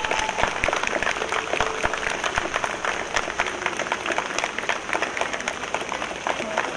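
A small crowd applauding, with dense steady clapping throughout as people welcome arriving cyclists.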